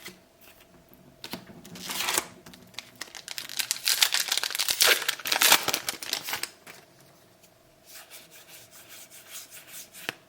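A trading-card booster pack wrapper being crinkled and torn open, loudest through the middle. It is followed by a run of quiet, quick ticks as the cards are flicked through.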